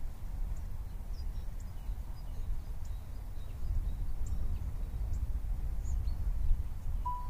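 Outdoor ambience: a steady low rumble with faint, scattered high-pitched bird chirps.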